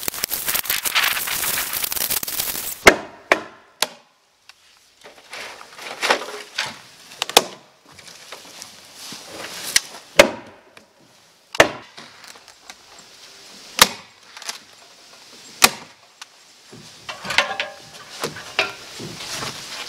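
A rustling hiss for about the first three seconds, then about a dozen sharp single strikes, one every second or two, on the wooden wall sheathing as house wrap is fastened to it.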